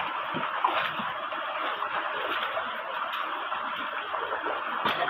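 Shallow, rocky mountain stream running steadily over stones, with a few small splashes from wading through it.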